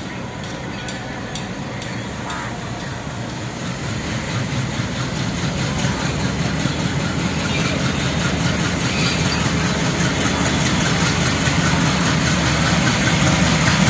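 ALCO-design diesel-electric locomotive engine working under power as the train accelerates toward the listener, its low engine rumble growing steadily louder.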